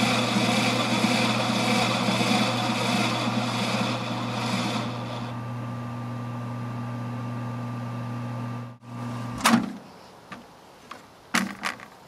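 Microwave oven running with a steady electrical hum. The noisier part of the sound fades about five seconds in. The hum cuts off abruptly near nine seconds, followed by a loud sharp click and then a few clicks and knocks as the door is opened.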